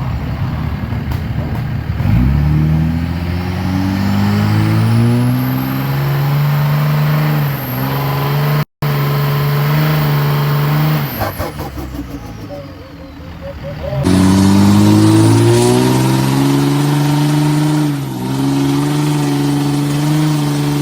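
5.9 Cummins turbodiesel revving up and held at high revs, with a high turbo whistle rising above the engine note. About halfway through the revs drop and the turbo flutters briefly, then the engine is abruptly back at high revs with the whistle.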